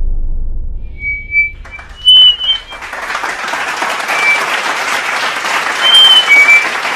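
A low rumble dies away, then an audience breaks into applause about two seconds in, swelling into steady clapping with several short, sharp whistles from the crowd.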